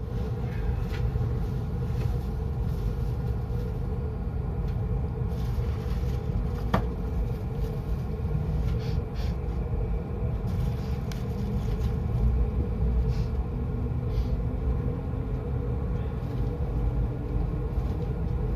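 Steady rumble of a JR Yokosuka Line electric train pulling out of a station and running, heard inside the carriage. One sharp click about seven seconds in.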